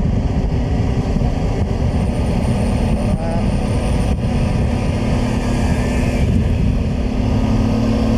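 Honda Transalp V-twin motorcycle engine running at road speed, under steady wind rush on the microphone. A steady engine tone stands out from about five seconds in.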